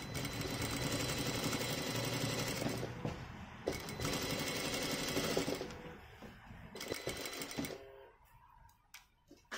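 Sewing machine stitching a skirt hem in stops and starts. It runs for about three seconds, pauses briefly, runs for about two more, then gives one short run and stops near the end.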